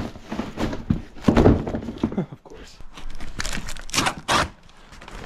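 A cardboard box of coiled sawmill bandsaw blades being handled and opened: a few dull knocks and scraping, rustling strokes, the loudest about one and a half, three and a half and four seconds in.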